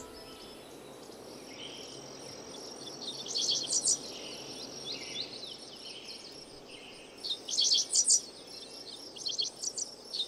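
Prairie songbirds singing in grassland: bouts of high, fast chirping phrases, about 3.5 seconds in, again around 7 to 8 seconds and near the end, over a steady background hiss.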